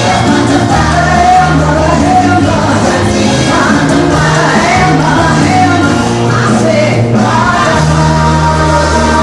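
Live stage music with group singing and a steady bass line.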